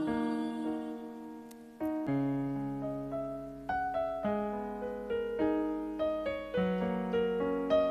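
Slow keyboard interlude in a piano voice: a held chord fades away, then from about two seconds in new notes and chords are struck every second or so, each left to ring and fade.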